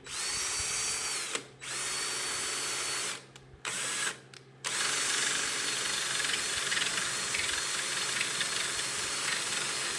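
Electric drill with a Forstner bit boring into scrap wood. The motor runs in a few short starts and stops, each spinning up and winding down, then runs steadily through the second half as the bit cuts.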